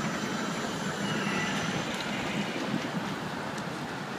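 Steady rushing outdoor noise from a plaza fountain's spray mixed with passing city street traffic.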